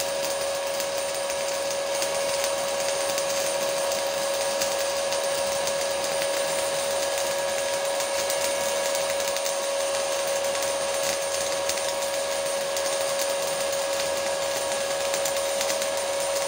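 Stick (MMA) welding arc from an LB-52U 2.6 mm basic-coated electrode on an S-Pro 200 inverter welder: a steady crackling hiss with a constant whine under it. The arc burns evenly without breaking off.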